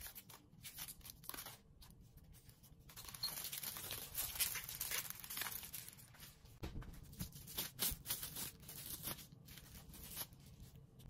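Aluminium foil crinkling as hands handle foil-wrapped cream-horn cone moulds, then plastic wrap crackling and rustling as it is peeled off a block of pastry dough. The rustling comes in irregular strokes, busiest in the middle of the stretch.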